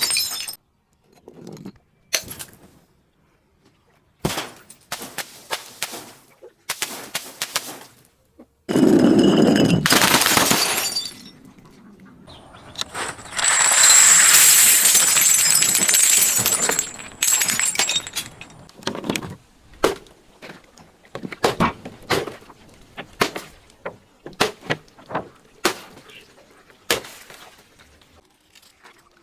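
Glass being broken and crushed: a loud smash about nine seconds in, a longer crunching stretch in the middle, then many short sharp cracks and snaps.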